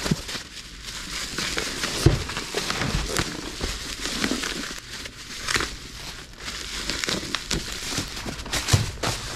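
Plastic bubble wrap rustling and crinkling as it is pulled off a boxed water pump by hand, with a couple of dull thumps, one about two seconds in and one near the end.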